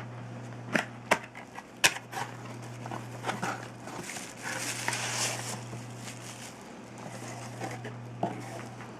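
Several sharp clicks and knocks, with a few seconds of rustling near the middle, over a steady low hum.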